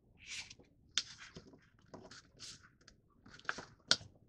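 A sheet of printer paper being folded and creased by hand: short soft rustles as the paper slides and bends, with a few sharp crisp clicks as the fold is pressed down, the loudest near the end.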